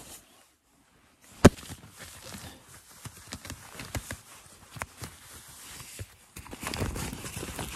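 Close handling sounds of clothing and a laced boot: rustling fabric with scattered small knocks and ticks, and one sharp knock about a second and a half in. The rustling grows louder near the end as a synthetic pant leg is pulled down over the boot.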